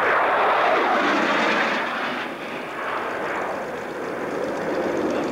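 Harrier jet's Rolls-Royce Pegasus turbofan, a loud, steady rushing jet noise as the aircraft passes close and then banks away. It is loudest in the first two seconds and eases a little after that.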